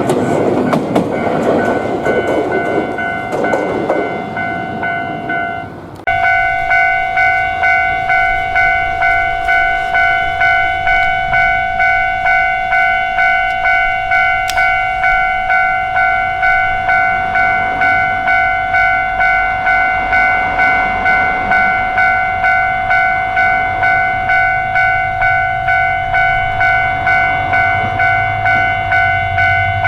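Japanese level-crossing alarm ringing its electronic 'kan-kan' bell in a steady, even repeating rhythm. For the first few seconds an electric train rumbles and clatters past over the bell. After an abrupt cut about six seconds in, the bell rings on alone.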